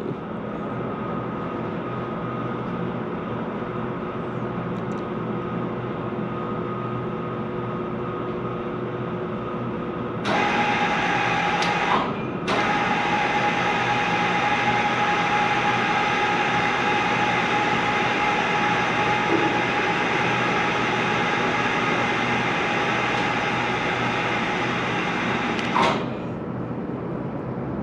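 Crane's motors running with a steady mechanical hum and whine as it lowers a load. About ten seconds in, a louder, higher whine joins and briefly cuts out two seconds later. It drops away a couple of seconds before the end.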